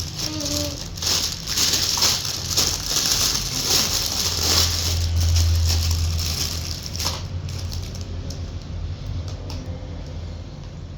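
Toy packaging being handled and unwrapped: plastic and paper crinkling and rustling with small rattles, over a steady low hum.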